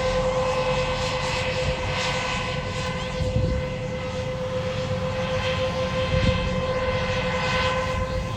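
Tractor pulling an air drill and air cart in the field, running steadily: a constant high-pitched whine over a low rumble.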